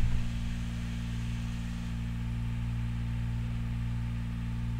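Green APU auxiliary power unit's small diesel engine running steadily and smoothly on its first start, a low even hum. It is heard from the truck cab with the passenger door open and is super quiet, with none of the rappy sound some units have.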